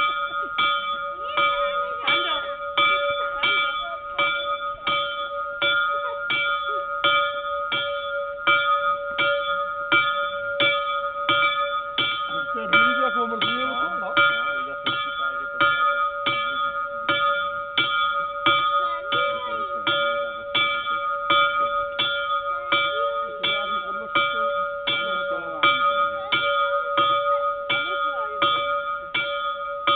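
Small bell in a wooden village bell post ringing the noon bell, struck over and over in an even rhythm of about three strokes every two seconds, each stroke ringing on into the next.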